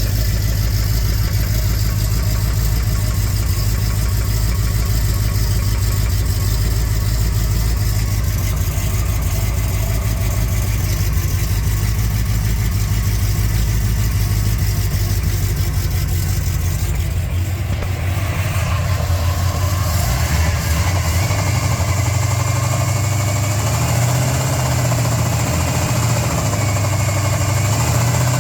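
Chevrolet 400 small-block V8 running near idle with a rod knock, a rapid knocking in time with the engine. Its note shifts about two-thirds of the way in.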